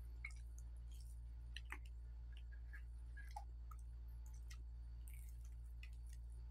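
Faint eating sounds: scattered small clicks of chewing and biting into a breaded chicken roll, over a steady low hum.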